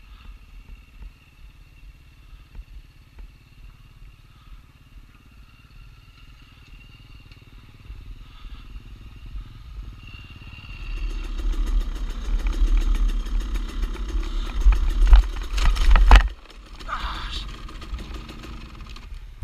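Dirt bike engines. One runs faintly and steadily for the first ten seconds. Then, about eleven seconds in, an engine gets loud and revs hard for about five seconds before cutting off suddenly, and a quieter engine sound with some clatter follows.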